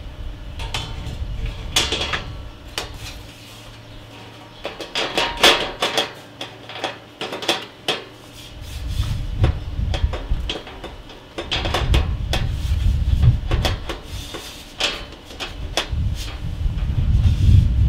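Clicks, taps and knocks of a PC case's panels and parts being handled and fitted back into place, a run of small sharp sounds through the whole stretch, with a low rumble coming and going underneath.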